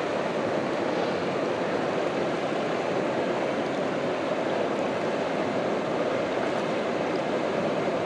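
Shallow mountain stream rushing steadily over a gravel bed.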